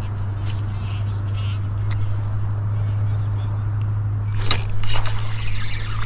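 Steady low wind rumble on the microphone, with a high, even insect trill that stops about four seconds in. Near the end come a few sharp clicks and rustling as a spinning reel is handled and cranked.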